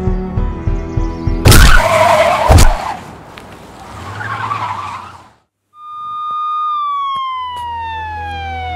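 Edited film soundtrack: music with a steady beat, broken about a second and a half in by a loud noisy burst lasting about a second that fades away. After a brief silence, a steady electronic tone comes in, holds, then slides slowly down in pitch.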